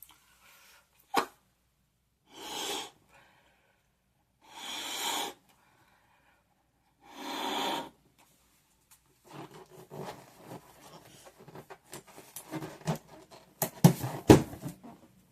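A balloon being blown up by mouth: three long breaths of air puffed into it about two seconds apart. Then rubbery squeaking and crackling as the balloon is handled, with a few sharp snaps near the end.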